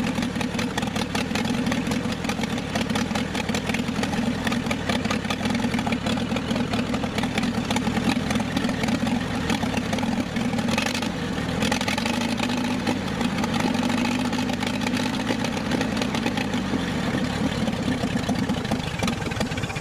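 Old David Brown 25 tractor's four-cylinder petrol engine running roughly at a steady idle, a wee bit rough: it sounds to be running on only three cylinders, with the fourth kicking in now and then, which the owner takes to be probably a spark plug issue.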